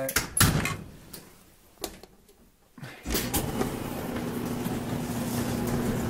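A few clicks and knocks at the Whirlpool gas dryer's door, then about three seconds in the dryer's drum motor starts and runs with a steady hum, the dryer set on heat for a test of its gas burner.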